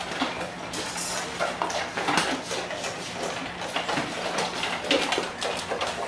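Four golden retrievers eating from metal bowls: irregular clinks, knocks and scrapes of muzzles and food against the metal, over a faint steady hum.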